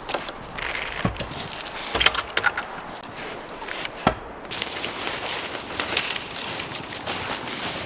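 Wood knocking and snapping as branches are handled and laid for a shelter: several sharp knocks and cracks in the first half, then a steady hiss.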